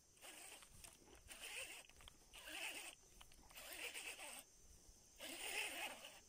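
Baitcasting reel being cranked in about five short bursts of quiet whirring, with brief pauses between them, as a lure is worked back in a stop-and-go retrieve.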